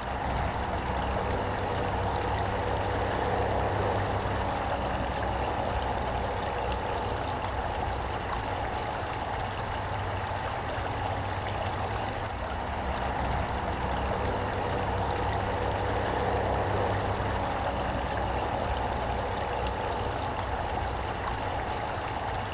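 Steady outdoor ambience: a low hum of distant traffic under the rush of flowing creek water.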